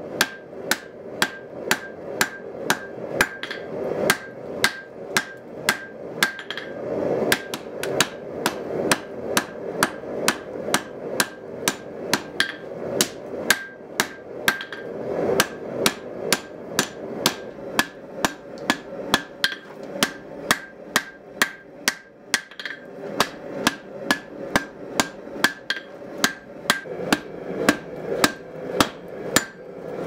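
Hand hammer striking glowing Damascus steel on an anvil, shaping a cleaver blank: a steady run of blows at about two to three a second, each followed by a high anvil ring, with a few short pauses.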